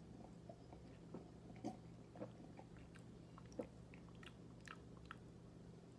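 Faint mouth sounds of a person drinking and tasting soda: swallowing and soft lip smacks, half a dozen small clicks spread through, over a low steady hum.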